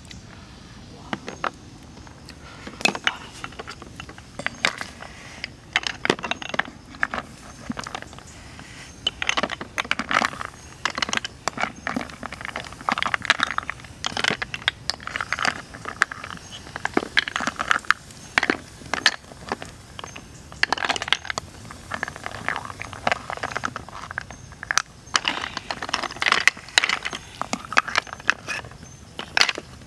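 Hard snail shells clicking and clattering against each other and a wooden ladle as they are scooped out of a clay pot of boiling water into a woven bamboo basket, in irregular clusters of sharp clicks.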